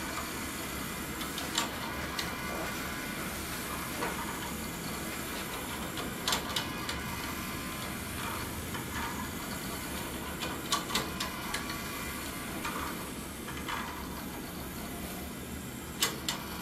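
Small electric motors running, turning 3D-printed plastic cam-follower mechanisms that lift hanging weights: a steady mechanical whir with occasional sharp clicks.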